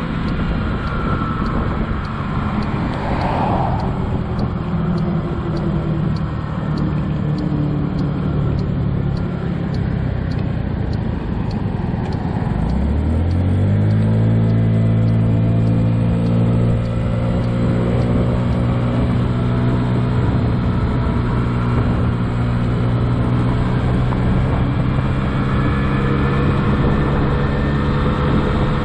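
2007 Honda Ruckus's 49cc four-stroke single-cylinder engine running under a steady rush of wind and road noise. A little under halfway through, the engine pitch climbs quickly over about a second and a half as the scooter accelerates, then holds steady as it cruises.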